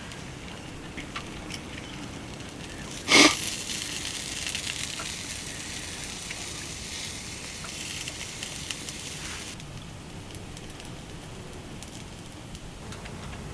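Wood fire crackling with scattered small pops. About three seconds in there is one loud sharp knock, followed by a high hiss that cuts off suddenly a few seconds later.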